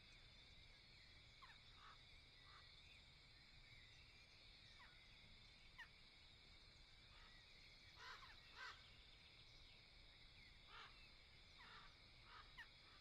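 Faint bird calls: short, scattered harsh calls, the clearest pair about eight seconds in, over a steady high-pitched drone.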